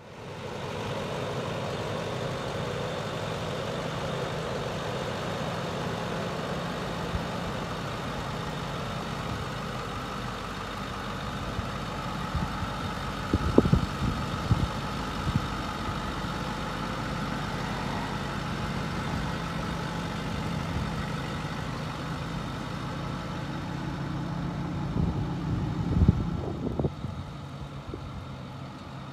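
Ford F-550's 6.4-litre Power Stroke V8 turbo diesel idling steadily, with a few sharp knocks about halfway through and again near the end.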